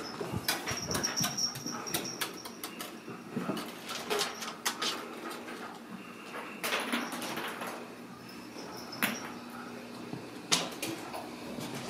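Kittens scampering on a wooden floor and stairs: irregular patters, clicks and light knocks from their paws and claws, with a few sharper knocks.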